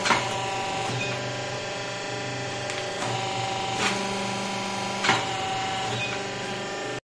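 Paper plate making machine running: a steady motor hum with several steady tones, broken by three sharp clacks, near the start and twice more about four and five seconds in, as the forming die presses.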